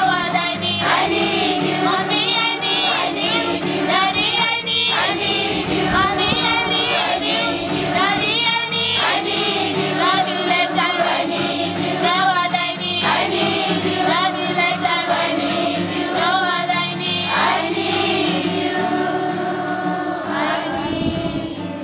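Children's choir singing together in unison with an acoustic guitar accompaniment. The singing fades away near the end.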